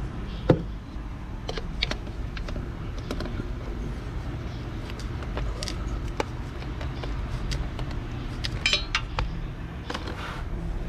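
Irregular metallic clicks and clinks of a hand tool working a stuck oil filter loose, with one sharp click about half a second in and a cluster near the end, over a steady low hum.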